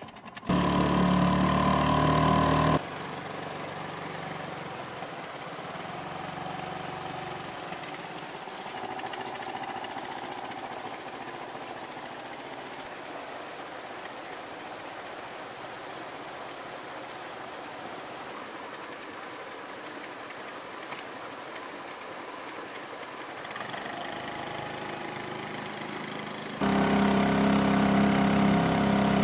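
Small Honda four-stroke outboard motor running: loud for the first three seconds or so, much quieter through the long middle stretch, and loud again for the last few seconds.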